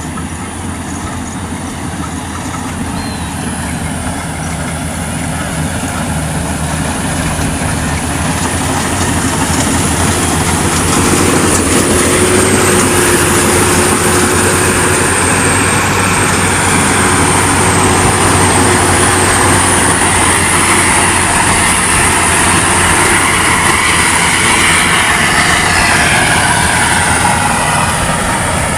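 Rice harvesting machine running steadily with a high whine over its engine noise, growing louder over the first ten seconds or so and then holding level.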